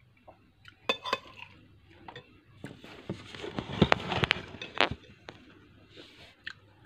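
Spoon and fork clinking against a bowl as someone eats, with a few separate clinks about a second in and a busier stretch of scraping and knocking in the middle.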